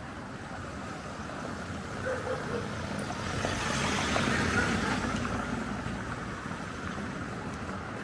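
A large SUV driving slowly past close by over cobblestones. Its engine and tyre noise swell to a peak about halfway through and then fade away.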